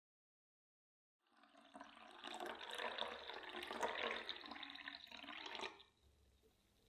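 Orange juice poured from a glass pitcher into a glass tumbler, the stream splashing into the glass as it fills. The pour starts about two seconds in, runs for about four seconds and cuts off suddenly.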